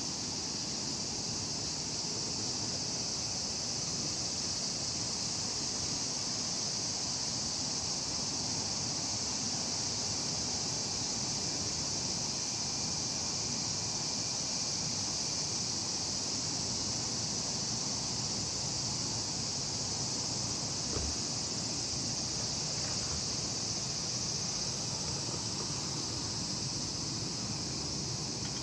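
A steady, high-pitched insect chorus over a low outdoor background rumble, with one faint knock about two-thirds of the way through.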